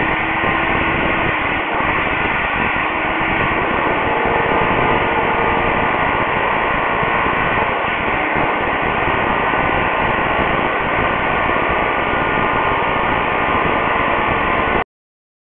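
Corded electric demolition hammer running continuously, its chisel bit chipping old floor tiles and adhesive off a concrete floor. The noise is loud and steady, then cuts off suddenly near the end.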